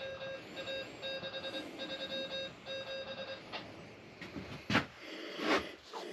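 A repeating electronic beeping tune, short tones in quick runs, that stops about three and a half seconds in. It is followed by a few knocks, a sharp thud and a brief rustle near the end.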